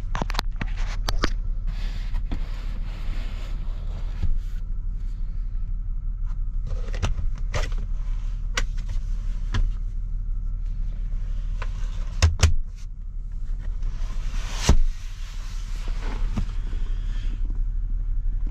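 A 1994 Lexus ES300 with a V6 engine driving, heard as a steady low drone of engine and road. Scattered clicks and knocks run through it, the loudest a pair about twelve seconds in and another near fifteen seconds.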